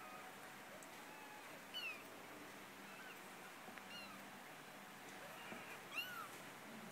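Kittens mewing: a string of short, thin, faint mews, the loudest about two seconds in and again about six seconds in.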